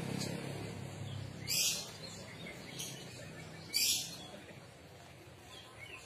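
Caged oriental magpie-robin giving only a few short, high calls rather than full song, the bird still shy. Two loud calls come about a second and a half and about four seconds in, with fainter notes between, over a low background hum.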